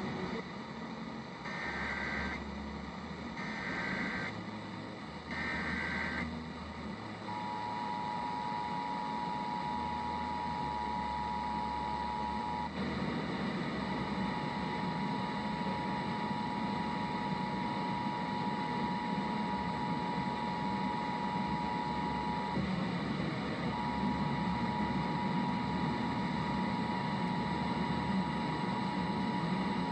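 Emergency Alert System test signals: three short bursts of warbling SAME header data tones about a second apart, then the EAS two-tone attention signal, a steady harsh dual tone that breaks off twice briefly and starts again. A noisy low background runs underneath.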